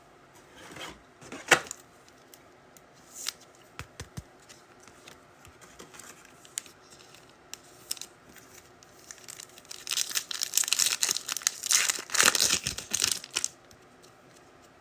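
Foil wrapper of a trading-card pack being handled, torn open and crinkled, with scattered clicks of cards and packs and a dense stretch of tearing and crinkling near the end.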